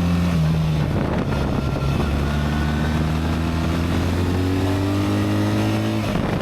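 BMW R 1300 GS Adventure's boxer twin engine pulling under throttle, its pitch rising steadily, then dropping suddenly near the end as the ASA automated gearbox changes gear. Wind and gravel road noise run underneath.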